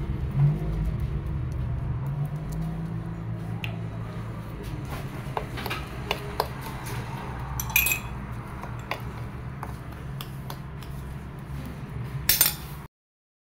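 A spoon clicking and scraping against a plate while stirring toasted semolina, with a few louder clinks, over a low steady hum. The sound cuts off abruptly near the end.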